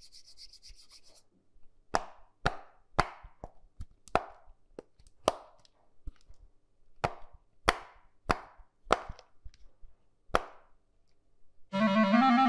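A series of about fourteen short, sharp plops or knocks, roughly two a second, with a brief pause in the middle. A pitched, music-like tone swells in near the end.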